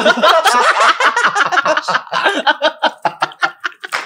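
Several people laughing together in rapid, overlapping bursts, trailing off toward the end.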